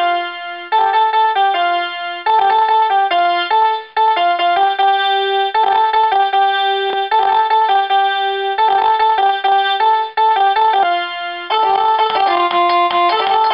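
Instrumental music: a simple melody played note by note on an electronic keyboard, with short breaks between phrases and a fuller, layered texture from near the end.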